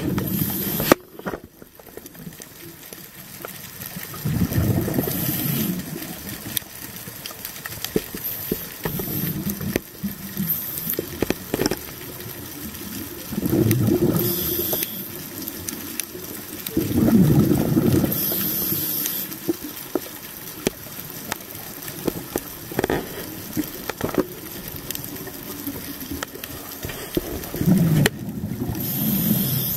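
Scuba diver breathing underwater through a regulator: a gurgling rush of exhaled bubbles about every four to five seconds, with short hisses and scattered clicks between them.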